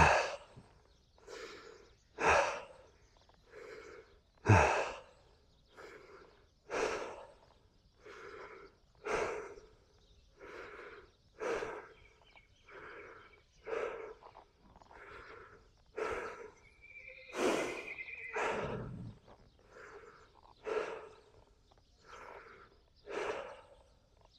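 Heavy, even breathing, a stronger breath alternating with a softer one, about one full breath every two seconds.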